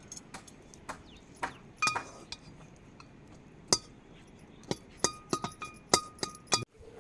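A series of sharp, irregular clinks and knocks like dishes and utensils being handled, a few of them ringing briefly.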